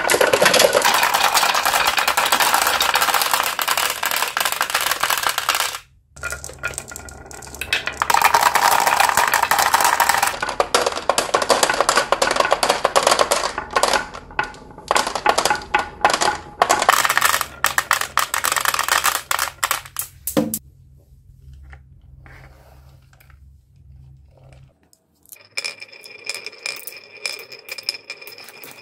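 Dozens of glass marbles clattering down a wooden wave-shaped slope and dropping into a plastic toy dump truck bed: a dense run of rapid clicks and knocks, broken by a brief gap about six seconds in and thinning out after about twenty seconds. Near the end, marbles rolling on another carved wooden track make a softer clicking and rolling sound.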